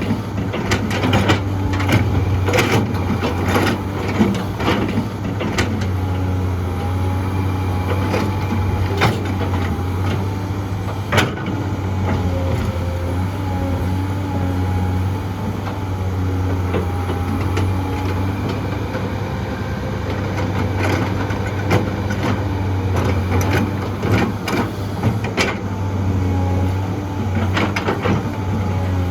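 Heavy diesel excavator running steadily at work, with frequent knocks and clanks and a faint wavering whine over the engine's low hum.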